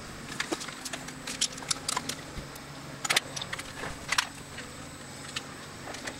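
Long-reach demolition excavator working a building with its crusher attachment: a run of sharp clanks and crunches of concrete and metal, loudest about three and four seconds in, over the steady hum of the excavator's engine.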